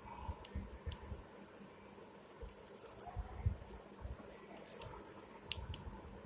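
Faint, irregular light clicks and low knocks of a Samsung flip phone's small plastic parts being handled and pried apart by hand.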